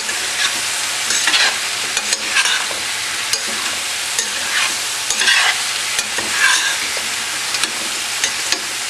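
Eggplant and potato cubes sizzling steadily in hot oil in a stainless steel pan, while a spatula stirs and scrapes through them with a stroke every second or so.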